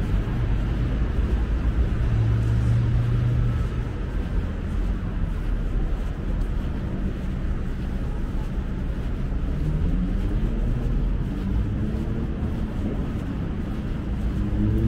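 City street traffic: vehicle engines running and passing as a steady rumble, with an engine note rising in pitch a few times in the second half.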